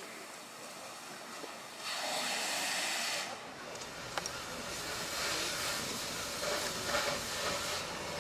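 Construction-site noise: a steady hiss from work on the roof, louder for about a second and a half near the start, with a few faint clicks and knocks later.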